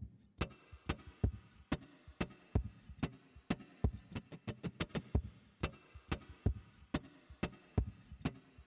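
Percussive knocks and slaps on the body of an acoustic guitar, beating out a sparse rhythm of sharp clicks and low thumps, several a second, with almost no ringing notes.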